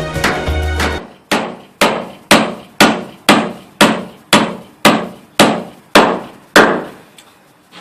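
Hammer driving a nail into an oak gate board: about eleven steady blows, roughly two a second.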